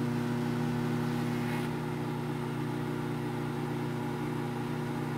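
Microwave oven running: a low, steady electrical hum from its transformer and magnetron, with no sparking from the grape inside.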